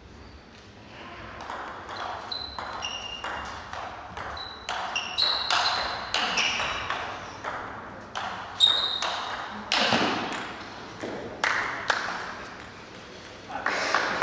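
Table tennis rally: the plastic ball clicks back and forth off rackets and table for about ten seconds, many hits ringing with short high pings. The hardest hits come near the end, then the rally stops.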